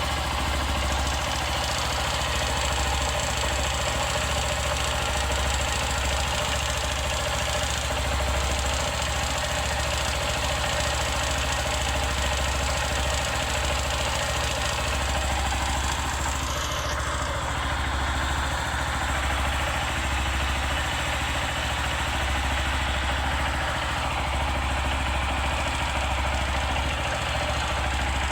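150 cc motorcycle engine idling steadily, with the light knocking noise that the mechanic takes for a worn, slack piston.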